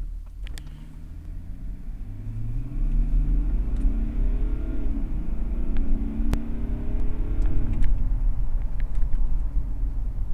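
BMW E39 2.5-litre straight-six turbodiesel running and revving up: its note climbs over the first few seconds, holds, then drops back about three-quarters of the way through, with a few faint clicks. It is being run with the MAF sensor disconnected during a check of poor turbo boost pressure.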